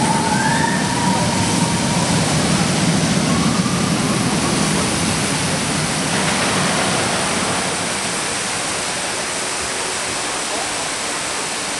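Steady rush of water from fountain jets spraying into the lake beneath a Vekoma suspended looping coaster. Over the first five seconds or so a coaster train rumbles past on the steel track, with a couple of brief high squeals near the start, then the rumble fades, leaving the water.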